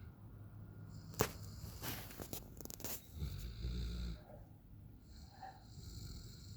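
Alaskan Malamute puppy snoring: one low snore about three seconds in, then softer breathing. A sharp click a little over a second in is the loudest sound, followed by a few shorter clicks just before the snore.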